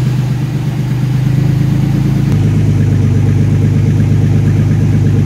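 1988 Chevrolet S10's 2.8 V6 idling loudly with an open exhaust: no muffler or tailpipe, the gases leaving straight from the cut pipe behind the catalytic converter. The note is steady and changes slightly a little over two seconds in.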